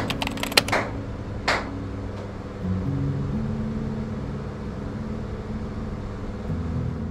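Two sharp hand claps about a second apart, the clapping of a Shinto prayer at a shrine altar. Soft sustained background music runs under them, its notes changing a few times.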